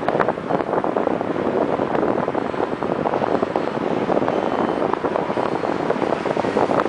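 Airflow rushing over the microphone of a pole-mounted camera on a tandem paraglider in flight: a steady wind rush that flutters rapidly in level.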